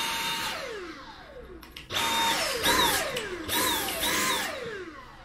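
Dyson V7 cordless vacuum motor run in about five short bursts: each time it starts with a high whine that then winds down in pitch as the motor coasts to a stop.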